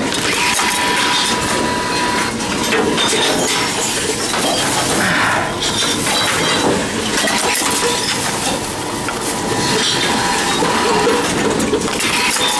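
Reverse vending machines running, with constant clattering and clinking of bottles and cans being handled, dropped and crushed inside, including glass clinking and breaking. A faint steady tone runs under the clatter for stretches.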